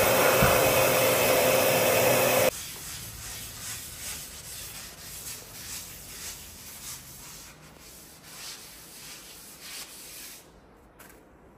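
A small electric motor's steady whirr with a hum, cutting off suddenly about two and a half seconds in. Then a series of faint rubbing strokes, about one or two a second, dying away near the end.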